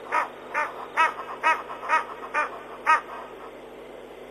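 An animal calling in a quick series of short, rising-and-falling pitched notes, about two a second, seven in all, stopping about three seconds in.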